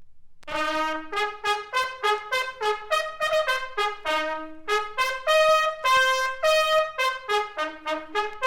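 Military bugle sounding a call: after a short silence, a quick run of short, detached notes leaping between a few fixed pitches, with a few longer held notes among them.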